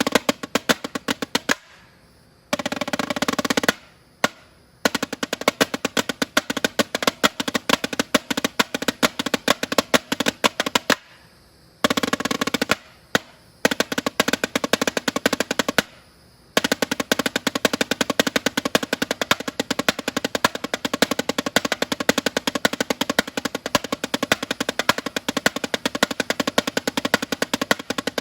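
Snare drum played with sticks in fast, dense freestyle patterns, stopping briefly a few times. Two short unbroken rolls stand out, one a few seconds in and one near the middle.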